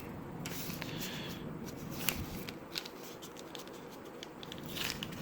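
Handling noise from small packaged accessories: light rustling and scattered small clicks, with a sharper click about two seconds in.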